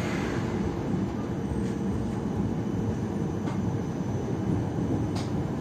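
Siemens Combino Plus tram running with a steady low rumble, a faint steady tone above it and a few faint clicks.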